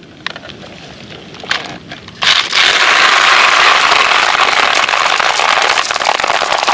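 Many marbles pouring out of a toy truck as it is unloaded, a dense, continuous crackling clatter that starts suddenly about two seconds in, after a few isolated clicks.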